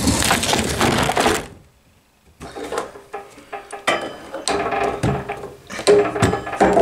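Work noise: about a second and a half of dense scraping, a brief silence, then scattered knocks and clatter, with a faint steady hum near the end.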